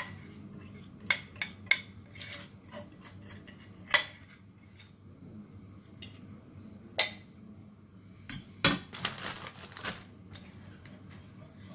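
Spoon clinking and scraping against dishes while chocolate topping is spooned onto a cake. There are a handful of sharp separate clinks, the loudest about four seconds in, then a short stretch of scraping a little before the ninth second.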